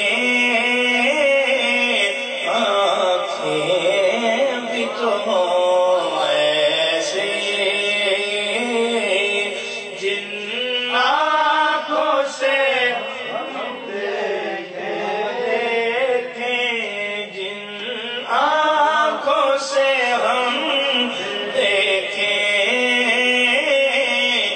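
A man singing a naat, a devotional Islamic poem, in a chanting style. He draws out long phrases that rise and fall in pitch.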